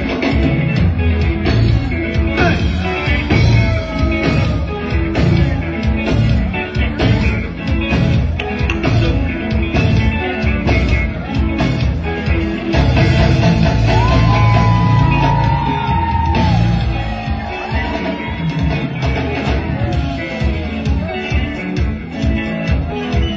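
Live sungura band music through a PA: electric guitars, bass and drum kit playing a steady, driving beat.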